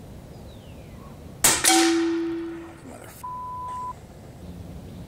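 Steyr LG110 PCP air rifle firing a single shot about one and a half seconds in. A split second later comes a ringing metallic clang that dies away over about a second. A short steady beep sounds about three seconds in.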